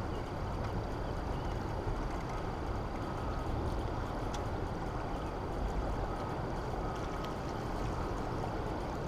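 Steady rushing of churning tailwater below a dam's open spillway gates, an even wash of water noise with a deep rumble underneath.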